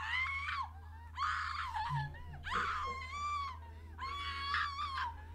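Shrill, high-pitched wailing screams in about four bursts, each lasting under a second, over a steady low hum.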